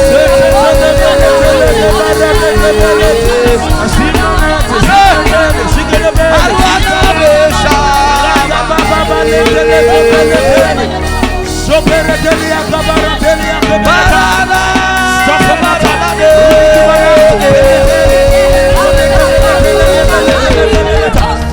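Worship backing music: a melody of long held notes, each sustained for a few seconds and stepping down and back up, over a steady beat.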